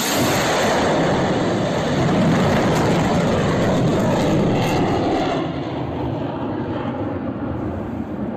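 Fighter jet engine noise, loud and steady, as the jet banks steeply at low level a few seconds after takeoff. It eases to a lower rumble after about five seconds as the jet moves away.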